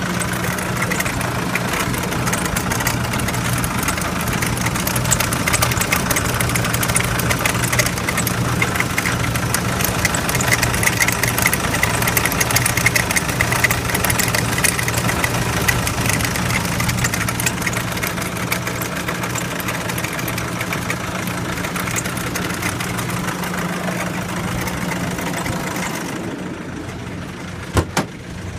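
Nissan Di direct-injection diesel engine idling, with dense rapid ticking over a steady low hum. Near the end the sound goes duller, and there is one sharp thump about a second before the end.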